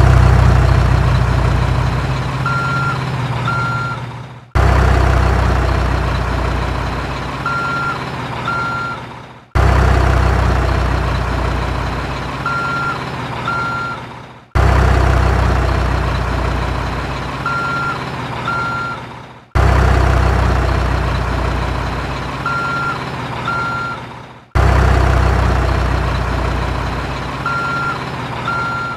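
Truck engine sound effect looped about every five seconds. Each round starts suddenly with a heavy low rumble that fades, has two short high beeps partway through, and cuts off abruptly before the next round.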